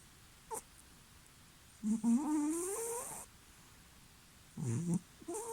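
British shorthair cat snoring in deep sleep, making pig-like snores: a long snore about two seconds in that rises steadily in pitch, a shorter, lower one about a second before the end, and another starting just before the end.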